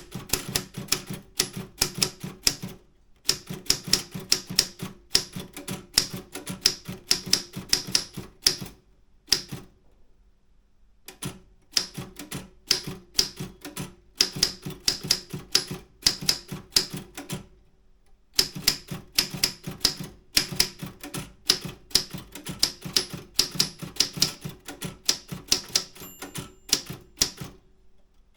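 Optima M10 manual typewriter being typed on: quick runs of sharp keystrokes, the typebars striking the platen, with short pauses about 3 seconds in, a longer one near the middle, and another about two-thirds through.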